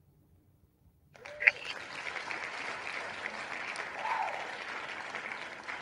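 Recorded applause and cheering from an online spinning-wheel name picker, starting about a second in as the wheel stops on a winner, with a brief cheer near its start.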